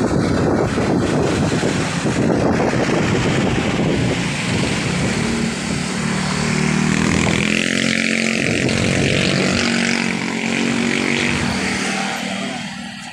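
Motorcycle riding along a road, with wind buffeting the microphone. A steady engine note comes through from mid-way, and the sound drops off near the end.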